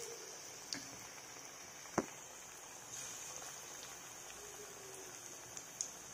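Urad dal vadas deep-frying in hot oil, a steady sizzle with scattered small pops. One sharp tick about two seconds in.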